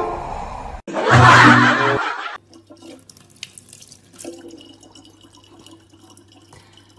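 A loud, noisy burst lasting about a second and a half, starting about a second in. Then a thin stream of tap water trickles faintly into a plastic water jug over a low, steady hum.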